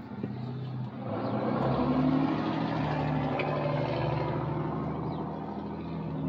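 A motor vehicle engine running steadily, getting louder about a second in and then holding.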